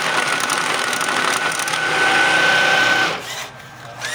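Banknote counting machine feeding and counting a stack of notes, a fast rattling riffle of paper over a steady motor whine. It stops about three seconds in, when it reaches a batch of 100 notes.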